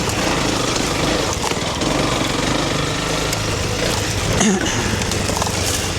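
Honda CRF300 Rally's single-cylinder four-stroke engine running steadily while the bike is ridden, with a constant rush of noise over it.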